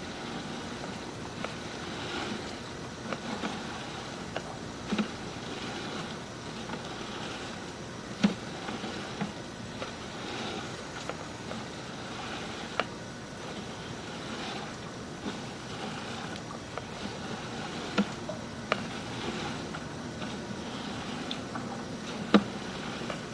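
Steady rushing of water running through a sewer line while a sewer inspection camera is pushed along it, with scattered sharp clicks and knocks, the loudest about 8, 18 and 22 seconds in.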